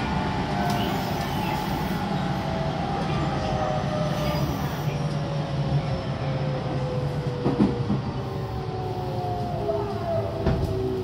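Tobu 9050 series electric train running, heard from inside the passenger car: the Toyo GTO VVVF inverter's whine falls slowly in pitch over wheel and track rumble as the train slows. Two sharp knocks from the wheels on the rails come in the second half.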